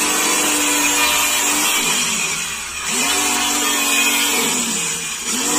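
Handheld electric saw cutting through laminated plywood board, a loud, harsh screaming cut. The motor's pitch sags as the blade bites and climbs back, twice.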